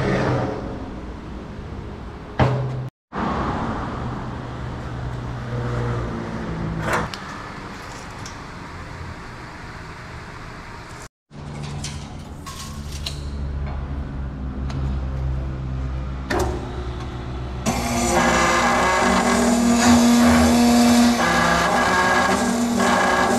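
Background music with a few knocks from handling metal, then from about three-quarters of the way in the electric motor of a metal cut-off saw running steadily.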